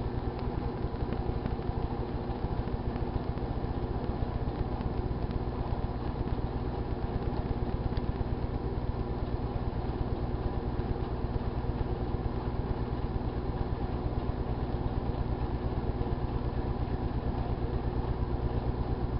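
GE Dual Wave microwave oven running with a steady hum, with no sparking from the plate inside.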